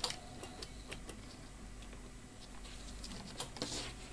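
Faint scattered clicks and taps from handling a multimeter and its test probes, a few slightly louder ones near the end, over a low steady background.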